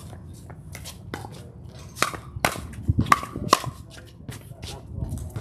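Pickleball doubles rally: paddles and the court striking the plastic ball in a quick exchange, a run of sharp pops about half a second apart in the middle.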